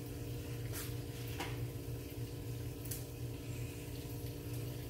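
A steady low hum with a faint even hiss, broken by a few light clicks.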